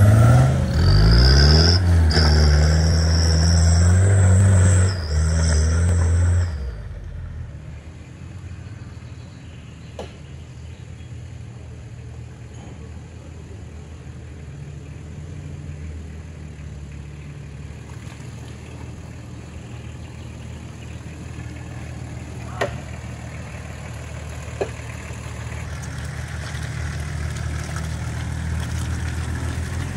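An off-road 4x4's engine revving hard close by, with a high whine over it. About six seconds in it drops away to a fainter, steady engine running under load, which grows slowly louder toward the end. A few sharp knocks come in between.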